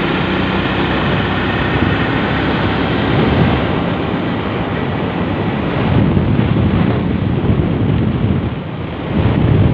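Motorcycle riding along at road speed, with wind rushing over the handlebar-mounted microphone and mostly covering the engine.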